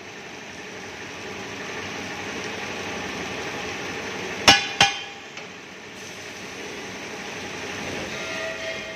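Automatic circumferential seam welder running on an LPG cylinder body as it turns, a steady hiss and machine noise. About halfway through, two sharp metallic knocks come a third of a second apart.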